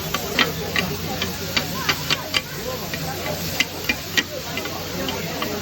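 Irregular sharp clinks and taps of utensils, two or three a second, over a steady hiss and background chatter.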